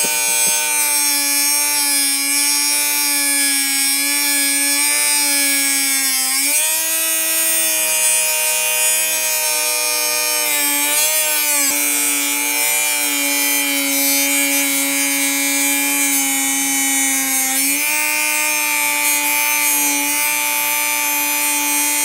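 Dremel rotary tool with a cut-off wheel grinding into a metal disc padlock, throwing sparks: a steady high motor whine over a grinding hiss. The pitch shifts a few times as the load on the wheel changes.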